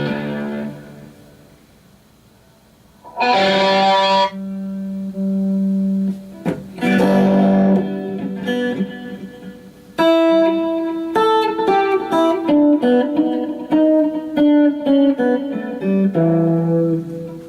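Electric guitar played through a Line 6 POD XT Live amp modeler: a strummed chord left to ring, a second chord a few seconds later, then a quick run of single notes closing on another chord.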